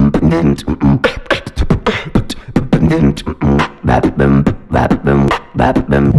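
A beatboxer performing into a handheld microphone cupped in both hands: sharp percussive clicks and snare-like hits alternating with short hummed, pitched tones in a fast rhythm.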